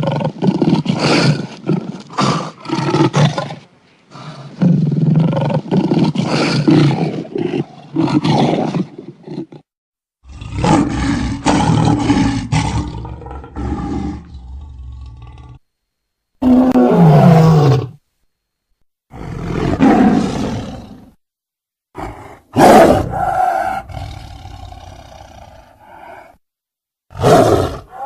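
Lions roaring and growling: several separate recordings cut together with short silences between them, one growl about two-thirds of the way through sliding down in pitch.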